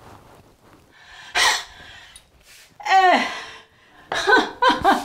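A woman's voice, not in words: a sharp breathy gasp about a second and a half in, then a long cry falling in pitch, then a string of short quick vocal sounds near the end.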